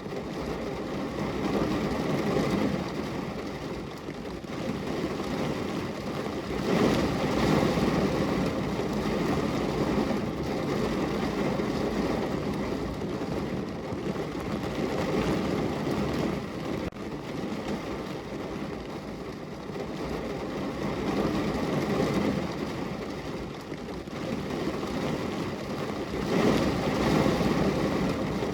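Heavy rain falling on a car's roof and body, heard from inside the car: a dense, steady patter that swells and eases every few seconds.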